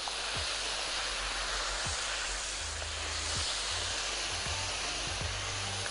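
Breaded beef escalopes frying in hot oil in a pan: a steady sizzle.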